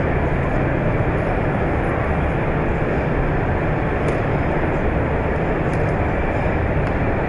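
Steady, dense background din of an exhibition hall, even in level throughout, with a faint low hum underneath.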